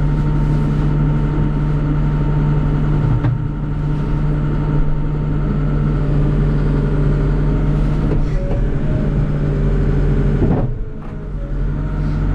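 Diesel engine of a CAT backhoe loader running steadily under hydraulic load while the backhoe boom and bucket are worked, heard from inside the cab. The level dips briefly about ten and a half seconds in.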